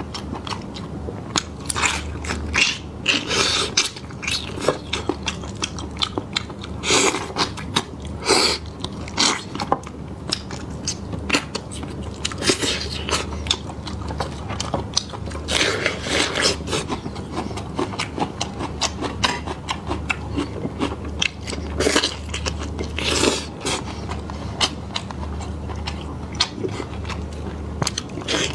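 Close-miked eating: a person biting and chewing meat, irregular clicky mouth sounds with louder bites every few seconds. A low steady hum runs underneath.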